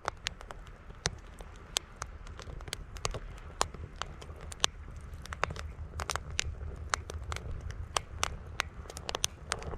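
Wood campfire crackling, with many sharp irregular pops, over a steady low rumble of strong wind.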